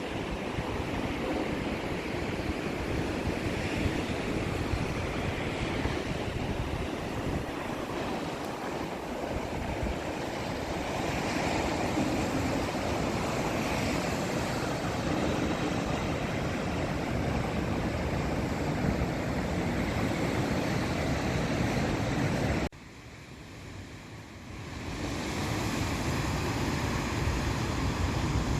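Sea surf breaking on a sandy beach, a continuous rushing wash of waves. About 23 seconds in, the sound drops off abruptly, then swells back up over the next two seconds.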